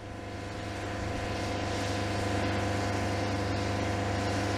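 Generator set of a passenger coach running steadily: an even hum with several steady tones, coming up in the first second or so. It powers the coach's air conditioning.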